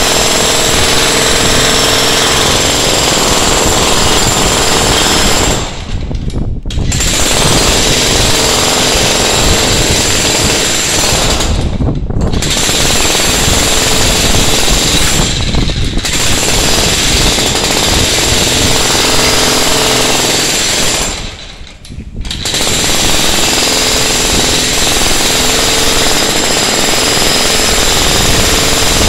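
Ryu Tekiro RDH 50 electric demolition hammer chiselling into a reinforced concrete floor slab, hammering continuously and stopping briefly four times.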